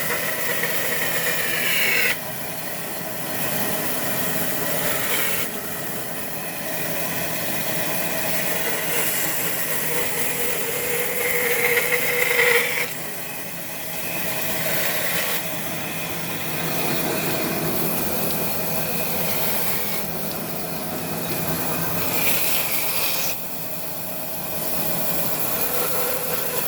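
Power saw machine (aara machine) cutting wood: a continuous saw whine and rasp through the timber, its pitch rising about halfway through, with the sound changing abruptly several times.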